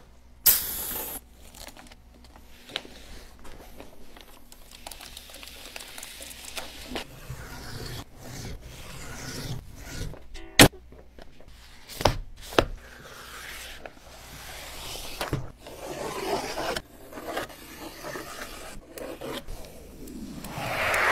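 Close-up sign-making sounds: a knife cutting vinyl along a straightedge and vinyl being rubbed and smoothed by hand onto a sign blank, with steady scratchy scraping strokes. Several sharp knocks come through, the loudest near the middle, and the rubbing grows louder near the end.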